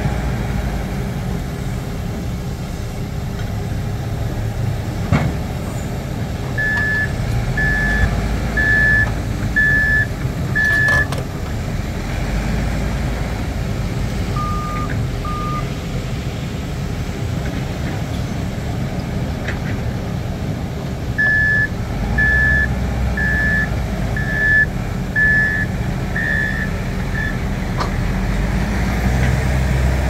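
Heavy diesel construction machinery running steadily, with a machine's travel alarm beeping about once a second: a run of five beeps, two lower beeps a few seconds later, then a run of seven.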